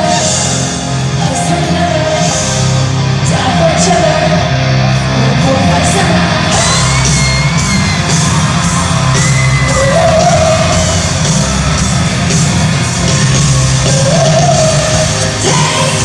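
Loud live concert music in a large arena: the band playing with held wordless vocal notes over it, and yelling and whoops from the crowd.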